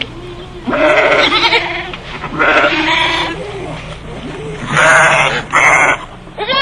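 Sheep bleating: four loud, wavering bleats of varying pitch, the last two higher.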